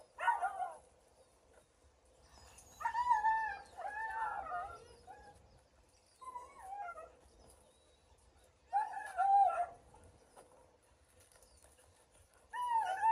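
A young dog barking and yelping, high-pitched and often falling in pitch, in about five short bouts with quiet gaps between them, excited while biting and tugging a rag in rag work.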